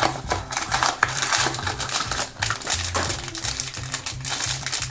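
Crinkling and rustling of blind-box packaging: the cardboard box being opened, then the shiny plastic bag with the minifigure inside being handled and pulled at. Background music with a steady, repeating bass beat plays underneath.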